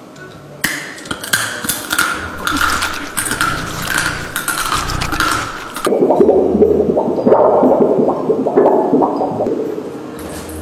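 Raw dry penne pasta crunched between the teeth for a few seconds, crackling. About six seconds in, a thin plastic film sheet is shaken and flexed, giving a loud wobbling rustle that fades near the end. Both are foley sound effects.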